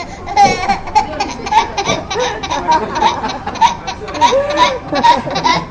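People laughing in a run of short, breathy bursts, a young child's laughter among them.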